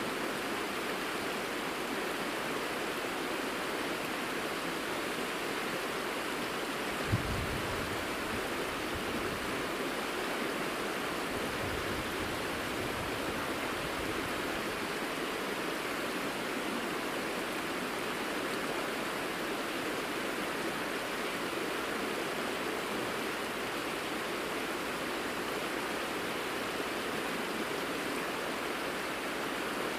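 Steady rush of a shallow mountain river flowing over a gravel bed. A brief low thump comes about seven seconds in, followed by some low rumbling for several seconds.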